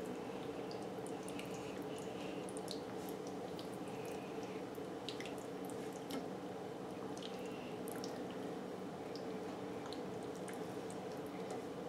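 Sticky, wet squelching of hands kneading raw chicken pieces in a thick tandoori marinade paste in a bowl: small irregular wet clicks and smacks over a steady low background hum.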